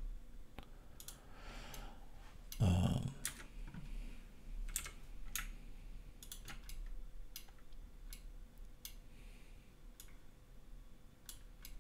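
Scattered computer keyboard keystrokes and clicks, irregular and fairly quiet, as shortcut keys are pressed. One short, louder low sound comes about two and a half seconds in.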